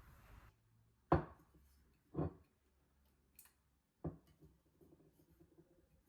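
Kitchen food-prep sounds: a steady hiss cuts off half a second in, then three sharp knocks on a work surface about a second or two apart, the first the loudest, with a faint click between the last two.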